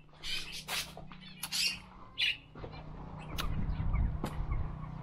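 Farmyard poultry squawking in several short calls, with a few sharp knocks later on and a steady low hum that grows louder about halfway through.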